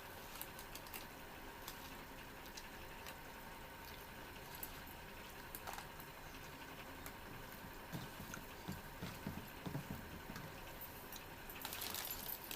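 Faint eating sounds: rice and fish curry being chewed, with small scattered clicks and a few louder soft thumps between about eight and ten seconds in, then a short rustle near the end.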